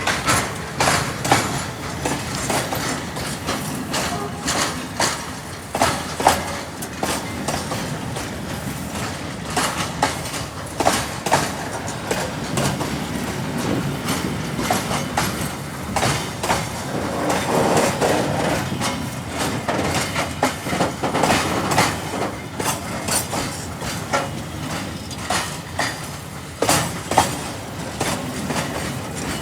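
Train wheels on the rails, clacking irregularly over a steady rumble as the train rolls.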